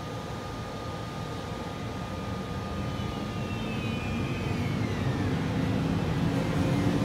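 Siemens Taurus electric locomotive at the head of a Railjet train approaching slowly, its rumble growing steadily louder. Over it sit a steady high tone and a whine that falls in pitch about halfway through.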